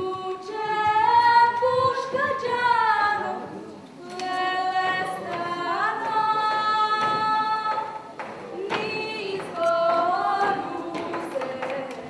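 A girl singing unaccompanied, holding long, sliding notes in phrases, with short breaths about four and eight seconds in.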